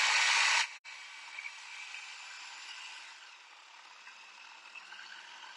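Electric food processor driven by a hand-mixer motor running loudly while chopping a bowl of mushrooms, then cutting out abruptly under a second in. The cook suspects she overloaded it.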